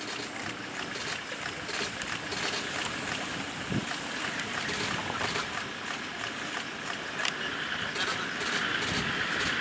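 Steady outdoor ambience of open grassland: an even hiss of wind and field noise, with a few faint clicks and two brief low knocks.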